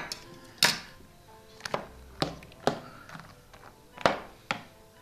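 A spatula clacking against a plate, about six sharp knocks at irregular intervals, while yogurt and boondi are stirred in it. Faint music plays underneath.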